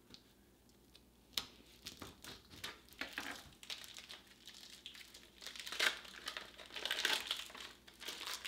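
Plastic packaging of deli slices being opened by hand, crinkling and crackling as it is pulled apart. The rustling starts after a single sharp tap about a second and a half in, and grows busier and louder toward the end.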